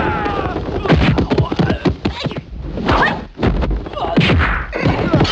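Kung fu fight sound effects: a rapid, irregular run of punch and kick impacts, mixed with short shouts and grunts from the fighters.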